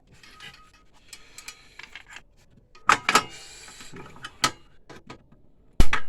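Small sharp clicks and rustling of cables and plastic connectors being unplugged from a printer's circuit board, with one hard knock near the end, the loudest sound.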